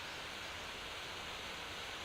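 Conic firework fountain burning with a steady hiss.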